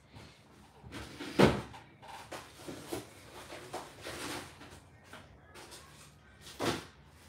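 Rummaging inside an open side-by-side refrigerator: containers and shelves or drawers knocking and rattling, with a loud thump about a second and a half in and another near the end.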